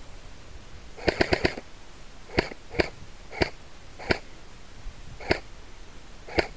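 Airsoft guns firing: a quick burst of four shots about a second in, then six single shots spaced irregularly over the next five seconds.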